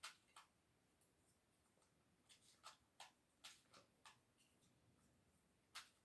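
Faint, irregular clicks of a bead pyraminx's plastic pieces being twisted by hand, several close together in the middle and a couple near the end.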